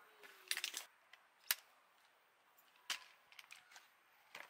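Helinox Chair One camp chair being unpacked and put together: a handful of sharp snaps and clicks spread over a few seconds, from the pole frame and seat fabric, with fabric rustling between them.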